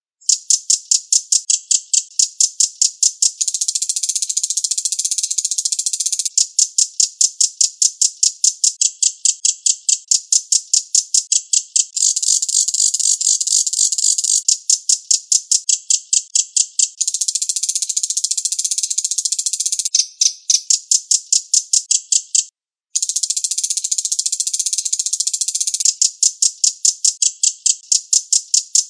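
Recorded birdsong: a high, dry rattling chatter, with stretches of rapid clicking notes at about five a second alternating with continuous buzzy rattling trills, repeated over and over as a training recording for songbirds. It breaks off abruptly for a moment about three-quarters of the way through, then resumes.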